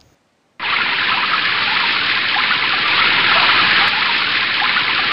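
Rushing floodwater of a swollen river in torrent: a loud, steady rush of water that cuts in abruptly about half a second in.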